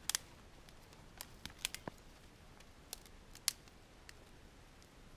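Wood fire crackling: a few scattered sharp pops and snaps as the freshly lit fire catches.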